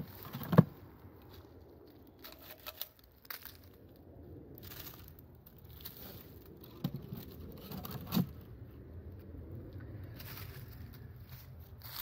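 Wooden beehive frames knocked and handled over an open hive box, with crackling and scraping of old dried-out comb. A sharp knock comes about half a second in, and two more near seven and eight seconds in.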